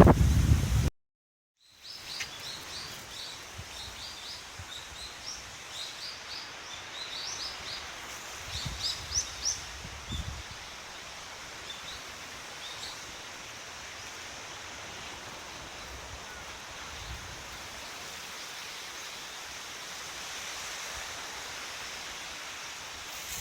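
Small birds chirping outdoors: many short, high calls in quick runs through the first half, over a steady background hiss. It opens with a loud low rumble that cuts off abruptly about a second in.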